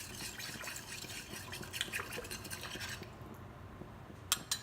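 A spoon scraping and stirring sour cream into a pan of sauce: a steady scraping for about three seconds, then two sharp clinks of utensil on pan near the end.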